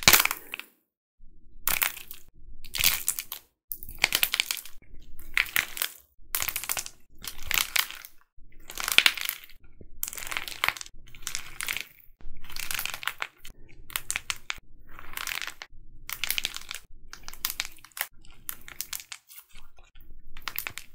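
A figure of dried plaster clay being cracked and crushed between the fingers: repeated crunching and crackling as it crumbles, one squeeze roughly every second.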